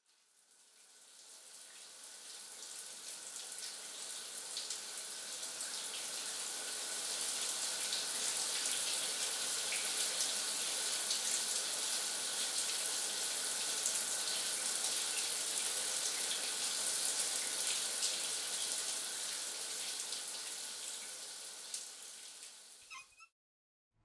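A steady rushing hiss, mostly high-pitched, fading in over the first several seconds and fading out just before the end, where it cuts off.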